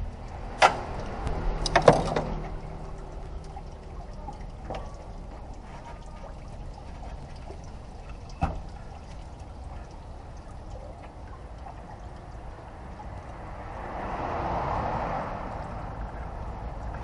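Scattered clicks and knocks from hands and tools working at the radiator's upper mounts and plastic fan shroud, a few close together near the start and one about halfway. About three-quarters of the way in, a rushing sound swells and fades.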